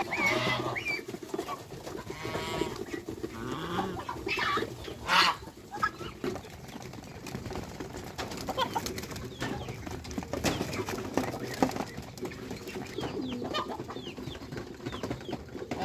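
Domestic geese calling: many short calls overlapping, with a louder one about five seconds in.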